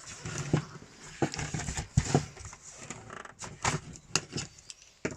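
Irregular plastic clicks and knocks from a handheld cordless vacuum and its charger plug being handled.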